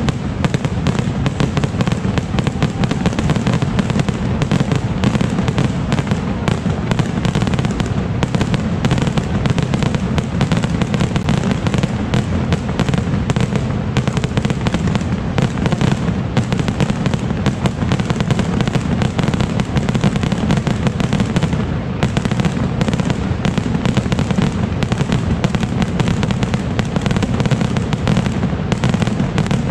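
A dense, continuous barrage of skyrockets exploding, the bangs packed too closely to count and going on without a break.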